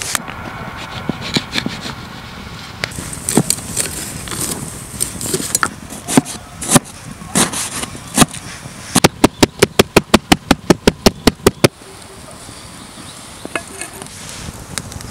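A cleaver cutting vegetables on a wooden board: irregular knocks and scrapes as the blade works into a pumpkin, then, about two-thirds of the way in, a fast, even run of about a dozen chops, four or five a second, as tomatoes are sliced. After that it goes quieter, with only a few faint clicks.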